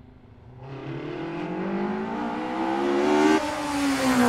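Ford Fiesta ST180's turbocharged four-cylinder engine, breathing through a stainless tubular exhaust manifold, pulling hard with its pitch climbing for about three seconds, then dropping suddenly and falling away.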